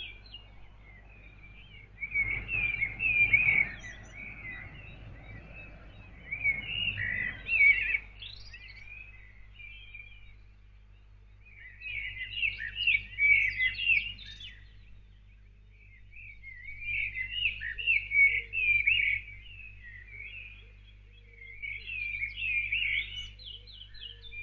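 A songbird singing in five warbling phrases, each two to three seconds long with pauses of a few seconds between them.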